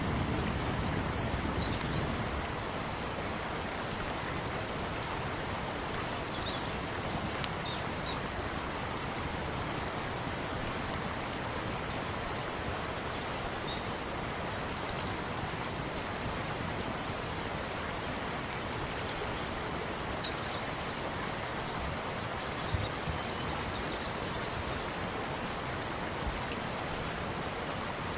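Steady rushing of running water, an even hiss with no rhythm, with a few faint high chirps scattered through it.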